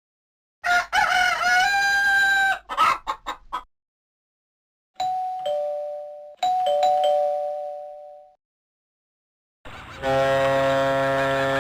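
Synthesized phone ringtone sounds from a Fly X3, played back through Yamaha's MidRadio synth player. First comes a rooster crow ending in a few choppy short notes. Then a two-note ding-dong doorbell chime, high then low, sounds twice. Near the end a sustained synth ringtone melody begins.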